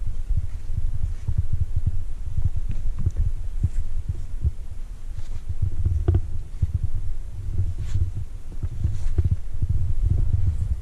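Wind buffeting the microphone: an uneven low rumble that swells and fades, with a few faint clicks and a single knock about six seconds in.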